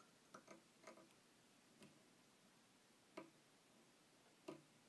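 Faint, scattered light clicks, about six in all, from a whip-finish tool and thread being worked around the head of a fly in the vise. The clicks are loudest near the middle and near the end, with near silence between.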